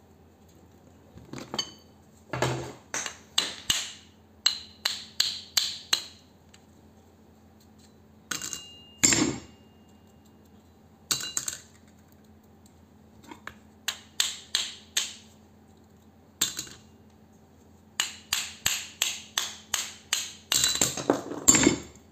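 Thin steel transformer core laminations clinking as they are pried out of a small transformer and dropped onto a steel plate. The clinks come in quick runs of sharp metallic clicks, each with a brief ring, with pauses between the runs.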